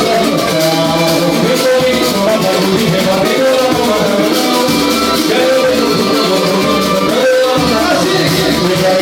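Samba-pagode group playing: a steady rattling shaker rhythm over pitched instruments and voices, running on without a break.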